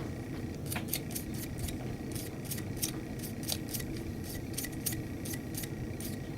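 Lubricant being applied to a Glock pistol barrel: a quick, even run of short, scratchy hissing strokes, about three a second.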